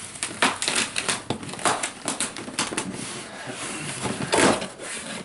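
Cardboard shipping package being handled and pulled open: a run of short crackles, scrapes and taps, with a louder rustle about four seconds in.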